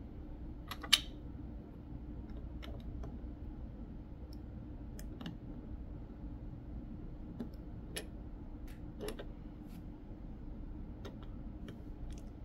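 Small plastic Lego pieces clicking as they are picked up and handled: one sharp click about a second in, then scattered lighter clicks, over a low steady hum.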